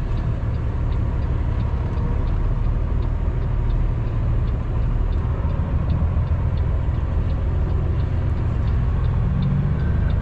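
Cummins ISX diesel engine of a Kenworth W900L semi truck running at low speed, heard from inside the cab as a steady low rumble, with faint regular ticking over it.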